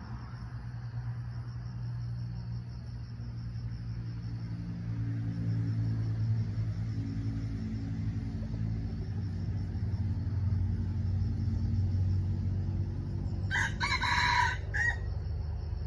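A rooster crows once near the end, a single call about a second and a half long, over a steady low engine hum.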